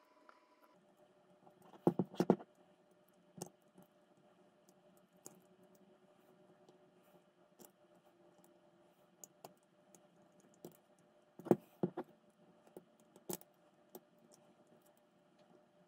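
Small screwdriver clicking and scraping on tiny No. 2 screws and the brass cylinder head of a model steam engine as the screws are tightened, with sporadic clicks and louder knocks about two seconds in and again around twelve seconds. A faint steady hum lies underneath.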